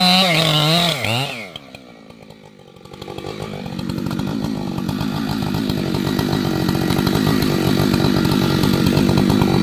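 Chainsaw engine running, coming in about three seconds in and growing steadily louder into an even buzz. It follows a brief pitched sound at the very start.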